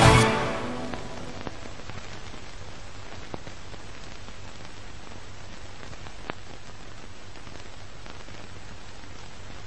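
The song's last sound dies away in the first second, leaving a steady hiss with a few faint, scattered clicks, like rain or record crackle.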